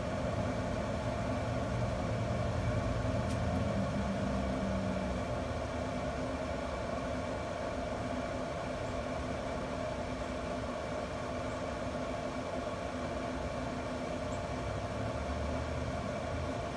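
Camp Chef pellet grill running: a steady mechanical hum with several steady tones, and a lower rumble in the first five seconds and again near the end.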